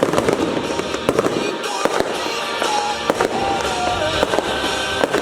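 Fireworks going off in a quick, irregular string of bangs, several a second, over loud pop music playing on the sound system.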